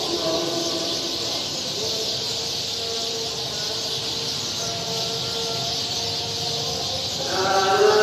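A distant voice chanting in long held notes, growing louder about seven seconds in, over a steady high hiss.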